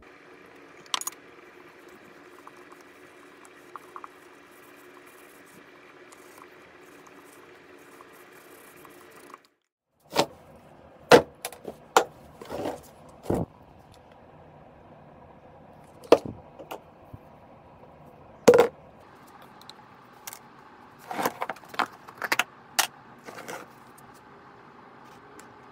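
Scattered clicks, taps and knocks of containers being picked up, handled and set down on a wooden workbench: a wax tin, a bucket and bottle, and a plastic cup on a digital scale. A steady hum runs under the first part and cuts off abruptly about nine seconds in; the sharpest knocks come in small clusters after that.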